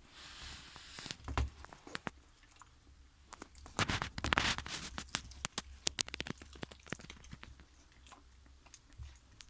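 A dog chewing and crunching: irregular sharp crunches and clicks, with a louder run of crunching about four seconds in.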